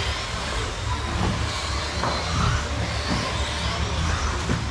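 Radio-controlled off-road racing buggies running laps on an indoor track: a steady mix of motor whine and rolling, rattling chassis and tyre noise over a constant low hum.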